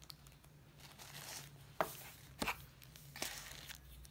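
Paper burger wrapper and cardboard takeout box rustling and crinkling as they are handled. Two sharp knocks come about two seconds in as the box is set down on a wooden table.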